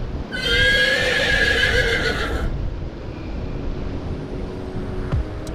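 Waves breaking on rocks with wind on the microphone. A moment in, a loud wavering pitched sound lasts about two seconds over the surf.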